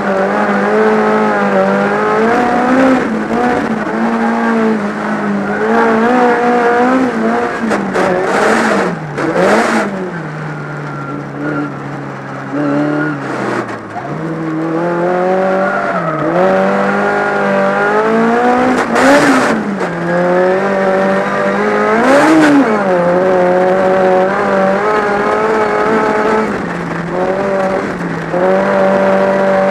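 Volkswagen Beetle race car's air-cooled flat-four engine at racing revs, heard from inside the cabin, its pitch rising and falling as the driver works the throttle and gears. The revs drop low for a few seconds midway. A few short, harsh bursts of noise come with the lifts and shifts.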